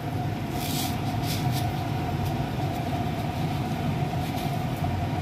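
Granulated sugar poured from a measuring cup onto rice in a metal pan, giving two brief hissing patters in the first couple of seconds. Under it runs a steady low hum with a faint constant whine.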